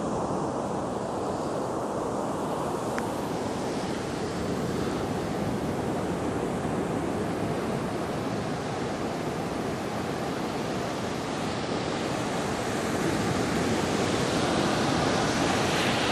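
Black Sea surf breaking and washing up a sandy beach, a continuous rush of waves that swells louder in the last few seconds.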